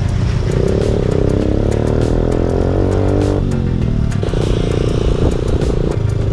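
Motorcycle engine running while riding in traffic. Its pitch falls over the first few seconds as the engine slows, then it holds steadier.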